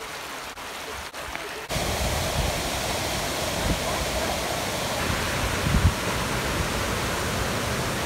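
A river running past stepping stones, then, about two seconds in, the louder, steady rush of a waterfall pouring into a rocky pool.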